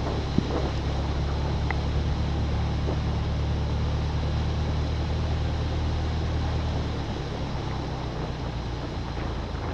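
A vehicle's engine running with a steady low hum as it pushes through floodwater, with water rushing and wind noise over it; the hum eases slightly near the end.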